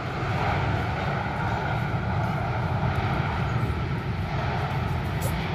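Steady low rumble of jet airliner engines.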